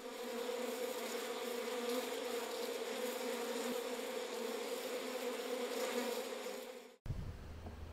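Honeybees buzzing en masse: a steady, dense hum that fades out and stops about seven seconds in.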